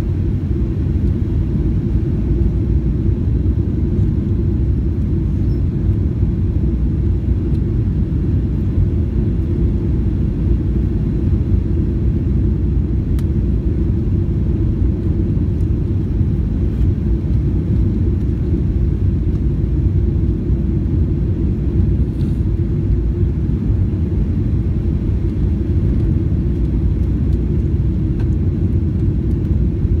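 Steady low cabin rumble of a Boeing 737-800 airliner on approach with flaps extended: engine and airflow noise heard from a seat over the wing.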